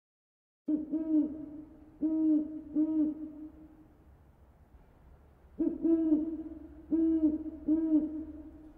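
An owl hooting in two runs of low hoots, the first starting about a second in and the second a little past halfway, with a pause between them.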